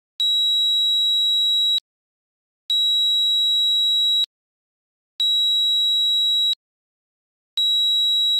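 Piezo buzzer of a breadboard touch doorbell beeping while a finger touches the touch contacts: a high, steady, pure tone in beeps about a second and a half long, separated by gaps of about a second. Three beeps, with a fourth beginning near the end. The tone shows the touch circuit is working.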